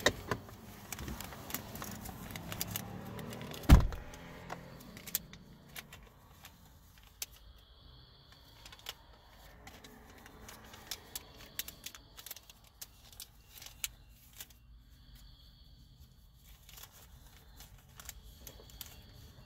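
Small items being handled in a vehicle's cabin: scattered light clicks and rustles of papers and cards, with one sharp knock about four seconds in.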